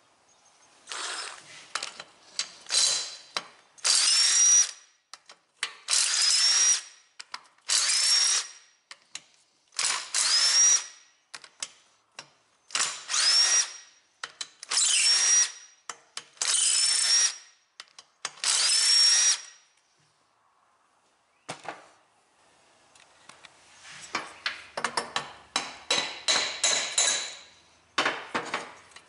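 Cordless power driver spinning the cylinder head bolts out of a Briggs & Stratton 5 hp engine in about ten short runs, each beginning with a rising whine. Near the end come a run of short metallic clicks and rattles as the loosened bolts and head are handled.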